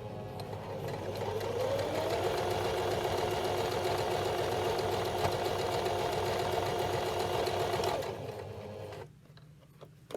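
JUKI HZL-28 home sewing machine test-sewing after its horizontal rotary hook was refitted: the motor speeds up over about two seconds, runs steadily at speed, then slows and stops about nine seconds in. A single click follows near the end.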